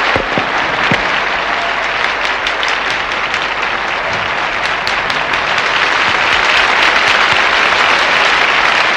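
Concert audience applauding, a dense steady round of clapping that swells slightly toward the end.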